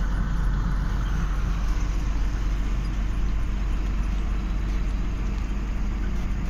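Steady engine and road rumble of a large vehicle, heard from inside its cab while it drives at speed on a highway.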